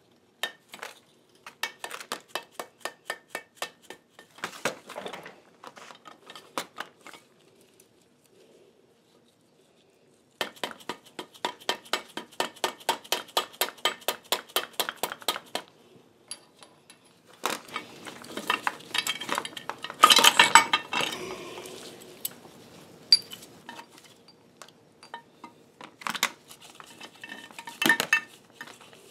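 Quick light hammer taps on steel, about five a second in runs, as the spindle is tapped through the cast-iron headstock of an Atlas horizontal milling machine to line up its key with the slot. About twenty seconds in comes a louder clatter of metal parts.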